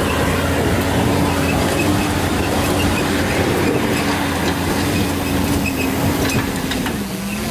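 4x4 off-road vehicle's engine held at steady high revs, pulling hard on a climb, with a strong low rumble beneath; the revs fall away about seven seconds in.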